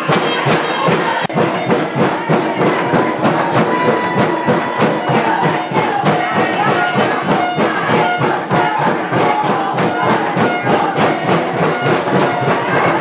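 Music with a quick, steady percussion beat and held melody notes over it.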